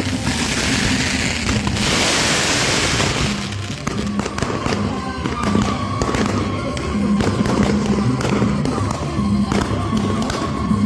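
Fireworks going off: a loud hiss for about the first three seconds, then a rapid run of sharp crackling pops, with music playing underneath.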